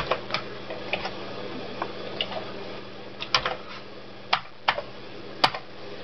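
Keys pressed one at a time on a Commodore 64C keyboard, about a dozen separate clacks at an uneven pace, with one sharper click near the end. A faint steady hum sits underneath.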